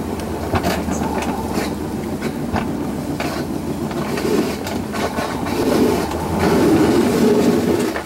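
Alpine coaster sled running down twin steel tube rails: its wheels rumble and clatter on the track with many irregular clicks. It gets louder in the last couple of seconds.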